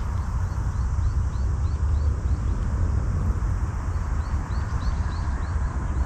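Low, uneven rumble of wind buffeting the microphone, with a run of short high chirps repeating two or three times a second.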